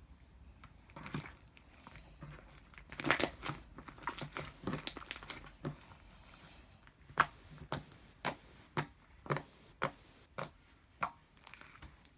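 Slime being squished and worked by hand, making crinkly crackling and squelching clicks, then a run of sharp pops about twice a second from about seven seconds in.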